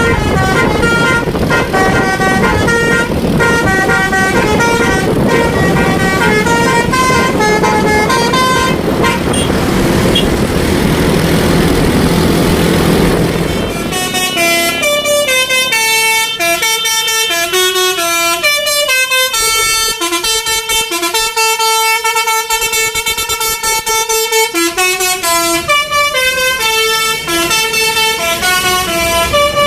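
Basuri 'telolet' multi-tone bus air horn playing a melody of short stepped notes, several tones sounding together. In the first half the notes sit over the noise of a running vehicle; from about halfway through they play alone and clean.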